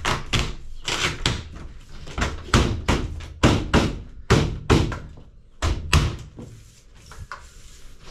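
A clear plastic snap joiner cap is pressed down by hand onto its base between two twinwall polycarbonate sheets, snapping into place along its length. It goes as a series of sharp snaps, often in pairs, about two a second, which thin out and grow quieter near the end.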